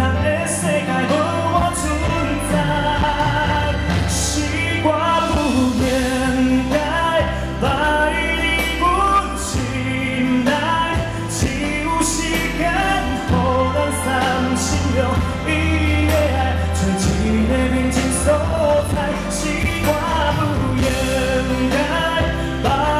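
A pop song performed live: a singer's voice carries the melody over a full band, with a steady bass line and regular cymbal strokes.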